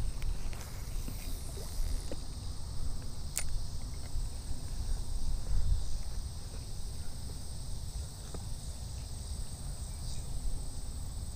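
Outdoor ambience: a low wind rumble on the microphone under a steady, high-pitched insect buzz, with a few sharp clicks, the clearest about three and a half seconds in.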